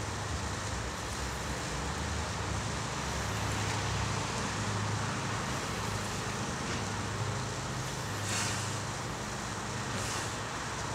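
A steady low background rumble, with a few soft swishes of a knife blade's flat being drawn across a diamond-paste leather strop on a wooden block.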